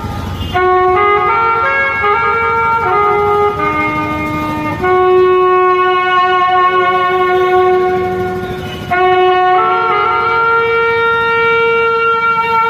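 Harmonium playing a slow melodic introduction to a qawwali: long held reed notes that step from one pitch to the next, with no drums.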